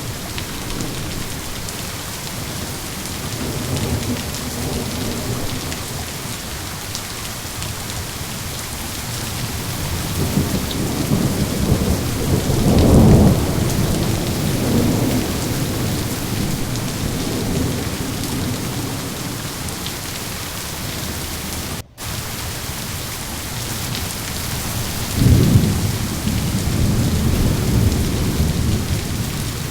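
Steady heavy rain with rolling thunder: low rumbles swell and fade several times, the loudest about 13 s in and another near the end. The sound cuts out for an instant about two-thirds of the way through.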